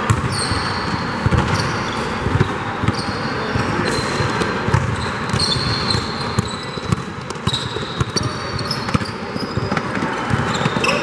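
Basketball being dribbled on a gym court during a game: repeated ball thumps, with sneakers squeaking on the floor as players run and cut.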